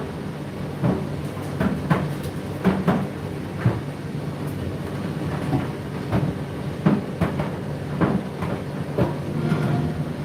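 Condenser tumble dryer running: a steady motor hum with irregular thuds of laundry falling in the rotating drum.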